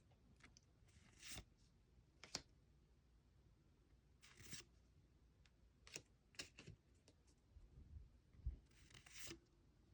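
Faint handling of trading cards: three soft swishes of cards sliding against each other, with scattered light taps and clicks.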